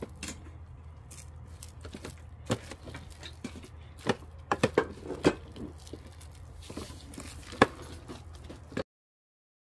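Plastic rice paddle stirring and mashing cooked rice with sweet potato and pumpkin in an electric rice cooker's inner pot: soft squishing with scattered taps and scrapes of the paddle against the pot, over a low steady hum. The sound cuts off abruptly near the end.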